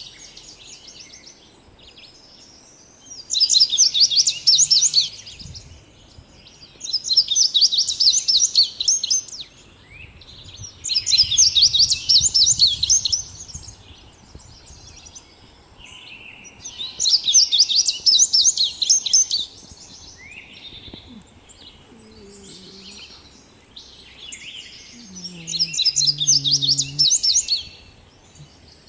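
A songbird singing five loud phrases of rapid, high notes, each about two seconds long and a few seconds apart, with softer chirps in between.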